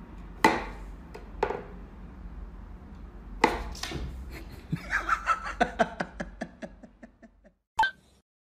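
Wooden knocks and clacks from a wooden whack-a-mole cat toy as its pegs are pushed and a cat paws at the pop-up mice: a few separate sharp knocks, then a quicker run of short sounds.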